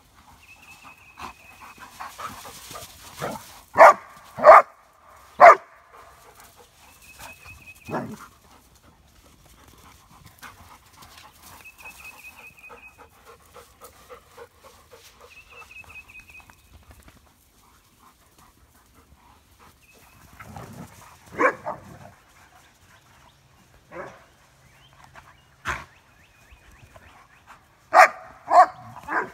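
Dobermans and Dogo Argentinos in rough play: short sharp barks, three close together about four seconds in, another around eight seconds, one around twenty-one seconds and a quick run of them near the end, with panting in the quieter stretches between.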